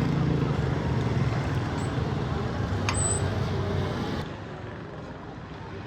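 Street traffic, with a motor vehicle's engine running close by for about four seconds and then dying away. There is a sharp click about three seconds in.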